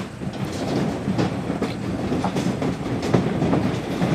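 A flock of ewes clattering with their hooves as they run onto a loading ramp to be loaded up: a dense, irregular patter of knocks over a low rumble.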